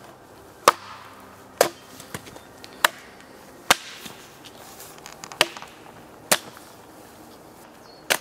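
Fiskars X10-S axe chopping into the flat top of a log, hewing it level: seven sharp blows about a second apart, with a few faint knocks of wood between them.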